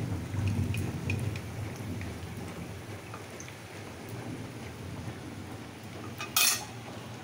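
Battered eggplant slices (begunis) sizzling and crackling in hot oil in a kadai. A metal spatula clatters once against the pan about six seconds in.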